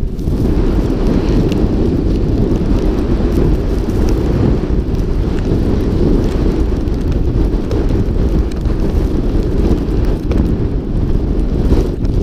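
Wind buffeting the microphone of a helmet-mounted camera on a snowboarder riding downhill: a loud, steady low rumble.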